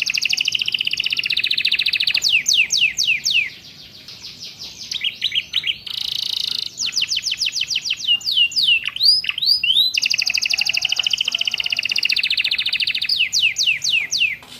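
Domestic canary singing a continuous song of long, rapid trills alternating with runs of steeply falling whistled notes, phrases learned from prinias (ciblek and prenjak). A quieter passage comes about a third of the way in, followed by a short buzzy phrase.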